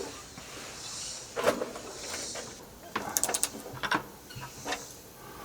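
Scattered light clicks and knocks, with a quick run of clicks about three seconds in, as things are handled and moved.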